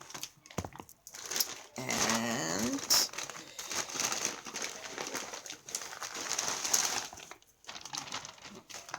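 Packaging crinkling and rustling in irregular bursts as it is handled and opened.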